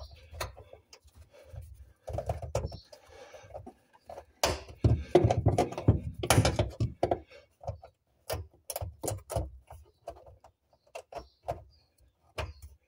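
Pliers working a spring hose clip on the fuel pump's hose: scattered metallic clicks, scrapes and knocks, with a denser spell of handling noise midway and a run of separate sharp clicks in the latter part.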